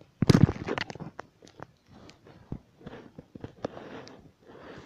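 Close-up rustling of bedding with many sharp clicks and taps at the microphone as a sphynx kitten scrambles and plays against the phone, with a loud bump about a quarter second in.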